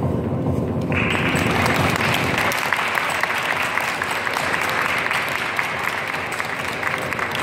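Audience clapping steadily, setting in abruptly about a second in.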